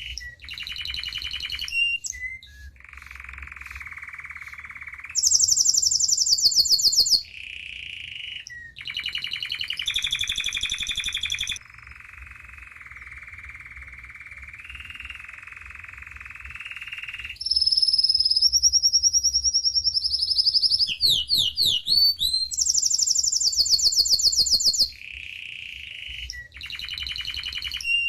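Domestic canary singing a long continuous song of rapid trilled phrases, switching between high, fast trills and lower rolling ones. Through the middle it holds one long low roll, and about three-quarters of the way in it runs a quick series of falling sweeps.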